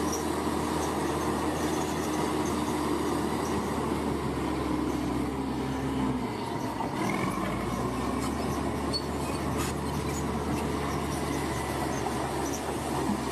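Diesel engine of heavy construction machinery running steadily with a low, even hum, the lowest notes dropping away briefly about six seconds in.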